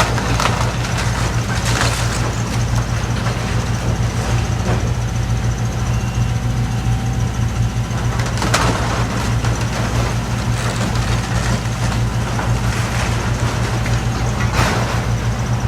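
A heavy diesel demolition machine runs steadily under load, with several crashes and scrapes of building debris being broken and dropped, the loudest about halfway through and near the end.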